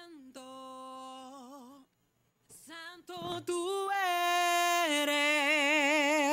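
An unaccompanied solo vocal track, a singer holding long notes with vibrato, played back through a Distressor-style compressor plugin. After a short break about two seconds in, a louder phrase follows as the compressor's input is turned up.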